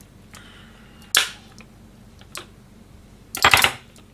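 Kitchen knife cutting candied sweet potato in a clear plastic takeaway tub, the blade knocking against the plastic: a sharp crack about a second in, a faint click, then a louder rattle of several knocks about three and a half seconds in.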